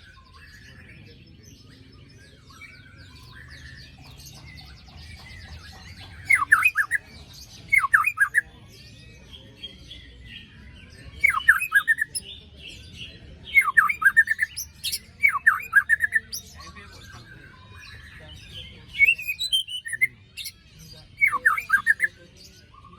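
White-rumped shama (murai batu) singing: loud bursts of quick downward-sweeping notes about every two seconds, the harsh 'besetan' phrases, with softer varied song and high chattering between them.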